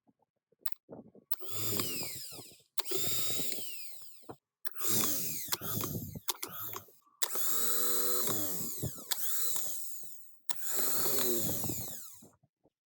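Electric drill/driver run in about five short bursts, its motor whining up to speed and winding down each time.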